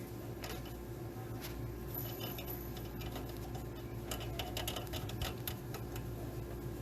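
Scattered small clicks and taps of computer parts being handled, thickest about four to five and a half seconds in, over a steady low electrical hum.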